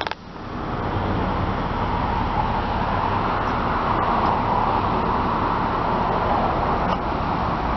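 Steady vehicle noise: a low engine hum under a continuous wash of road-traffic noise, after a brief drop in level at the very start.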